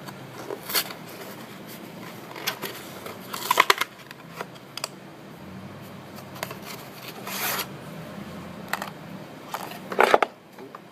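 A mailed package being opened by hand: scattered rustles, scrapes and clicks of packaging being handled. The loudest is a quick cluster about three and a half seconds in, with another sharp one near the end.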